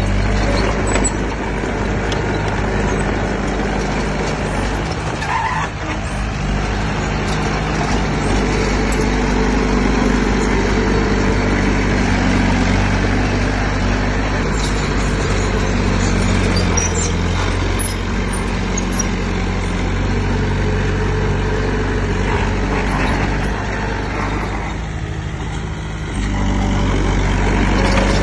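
Heavy diesel engine of earthmoving machinery running continuously, its engine note shifting a few times as the load or throttle changes.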